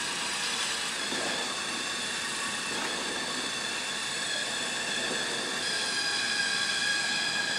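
Waring Big Stix commercial immersion blender running with its whisk attachment in a large pot of mashed potatoes: a steady motor whine over a hiss, growing a little louder about three-quarters of the way in.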